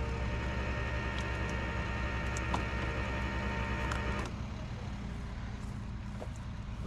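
A vehicle engine idling: a steady low drone with constant humming tones over it, which drop away and leave a quieter rumble about four seconds in.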